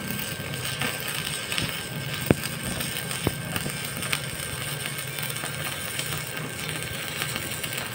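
Stick (shielded metal arc) welding: the electrode's arc crackling and hissing steadily as a bead is run, over a steady low hum, with a couple of sharp pops a few seconds in.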